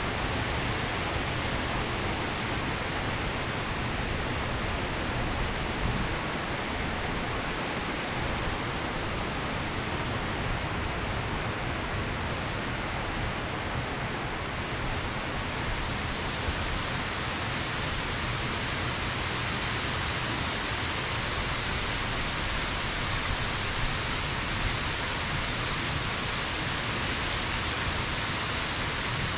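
Steady rain falling, a dense, even hiss with no lulls. About halfway through, the hiss turns brighter and higher.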